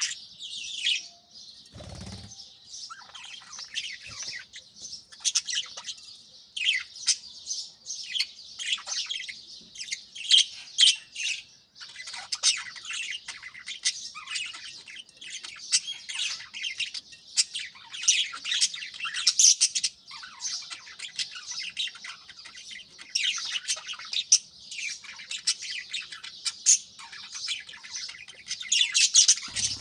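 A flock of budgerigars chattering and chirping continuously, many high, quick calls overlapping. There is a brief low thump about two seconds in.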